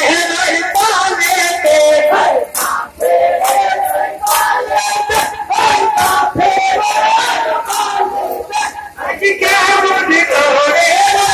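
A crowd of voices chanting and singing together, loud and held on sustained notes, with sharp percussive hits throughout. There is a short dip about two to three seconds in.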